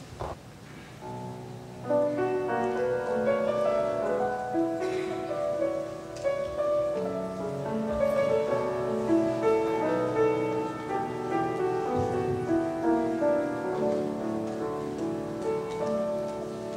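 Grand piano played solo, many notes held and overlapping; it comes in softly about a second in and grows fuller about two seconds in.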